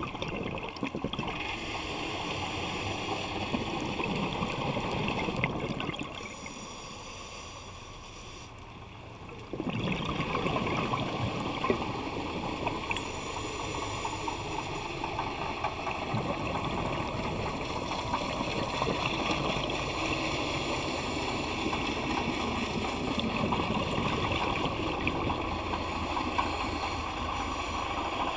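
Muffled rushing and gurgling of water heard underwater. It drops to a quieter hiss for a few seconds about six seconds in, then comes back suddenly.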